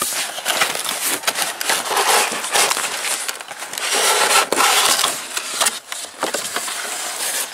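Cardboard toy box and its plastic packaging being handled and opened: dense rustling and crinkling with many small clicks and scrapes.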